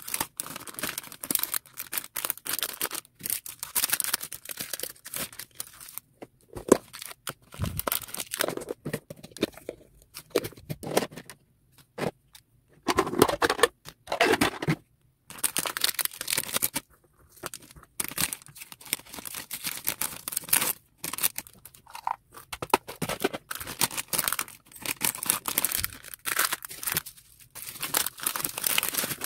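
Clear plastic bags and bubble wrap crinkling and rustling as small items are handled and packed, in irregular spurts with short pauses.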